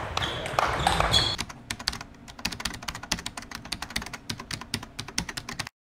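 Rapid, irregular clicking like typing on a computer keyboard, a sound effect in an animated outro; it stops abruptly near the end. Before it, about a second of sports-hall sound with a few knocks and a short squeak.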